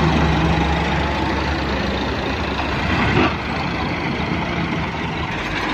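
Tractor diesel engine running steadily close by, pulling a trolley loaded with sand.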